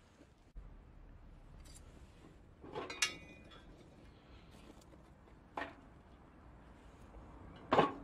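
Metal clinks and knocks: a ringing clink about three seconds in, a lighter knock a little later, and the loudest clank near the end as a steel lid is set down onto a steel box that snuffs out smouldering charcoal.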